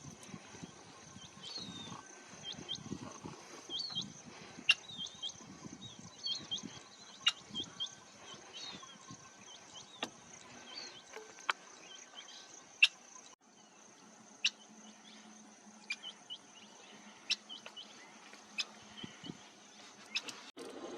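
Brown crake giving short, repeated chip calls about once a second, thinning out in the second half: the mother's calls telling her chicks to stay hidden. A steady high insect drone runs underneath.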